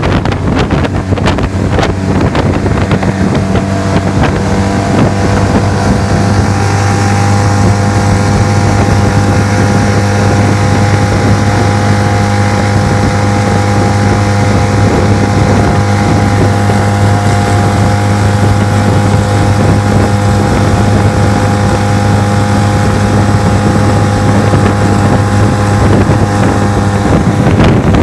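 25 hp outboard motor on a light aluminum jon boat running steadily at cruising speed, its drone settling into an even note after the first few seconds, with wind rushing over the microphone.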